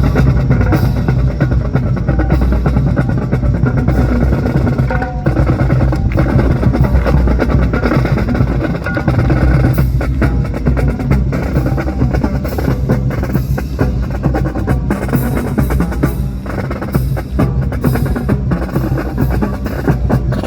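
Music with drums and percussion playing, full of sharp drum strikes over a heavy low rumble.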